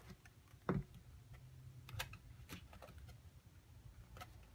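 Pages of a large glossy photo book being turned and pressed flat by hand: a few scattered soft paper taps and rustles, the loudest a dull thump a little under a second in.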